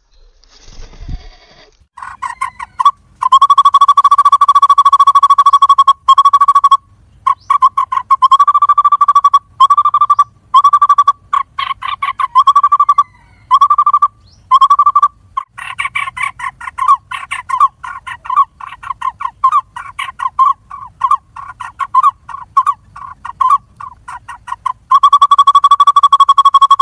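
Woodpecker nestlings begging: a loud, buzzy, continuous chorus of calls that starts about two seconds in. It comes in long bouts of several seconds, broken by quick stuttering runs of short calls.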